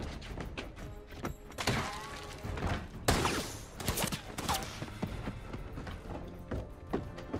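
Movie gunfight sound mix: a music score under repeated gunshots and thuds, with the loudest sharp crack about three seconds in.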